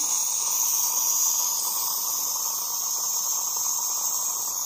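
Tassimo pod coffee machine brewing: its pump runs with a steady hum and hiss as coffee fills a glass mug, easing off slightly near the end.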